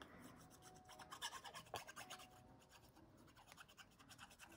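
Faint scratching and light ticks of paper craft pieces being handled and slid about on a desk, a little busier about a second in.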